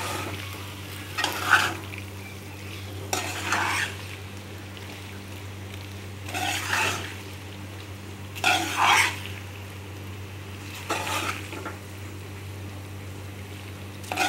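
A slotted metal spatula scraping and stirring cooked macaroni in a metal pot: about six scrapes, a couple of seconds apart, over a low sizzle from the pan.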